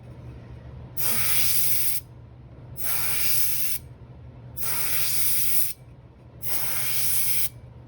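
Old Paasche airbrush spraying ink in four short hissing bursts of about a second each, the trigger pulled and released between them, over a steady low hum.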